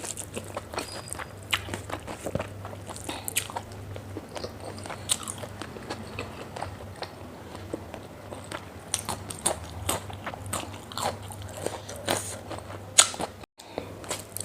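Close-miked chewing and biting of pork fat and rice: a steady stream of irregular wet mouth clicks and smacks, with one sharper click near the end.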